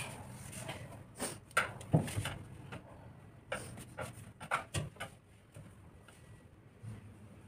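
A cloth being rubbed and flicked over a car's body, wing mirror and side window as it is wiped down by hand: irregular short swishes with a few sharper knocks, fewer and softer after about five seconds.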